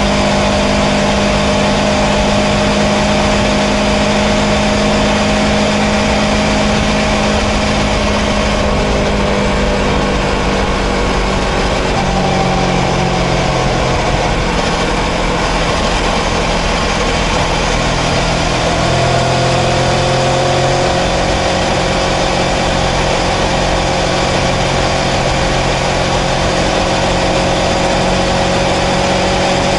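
Kawasaki Versys 650's parallel-twin engine running under way at road speed. Its note shifts a few times and then climbs slowly over the last ten seconds.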